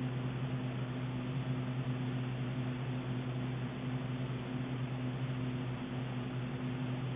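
Steady background hiss with a low, constant hum and no distinct sound event.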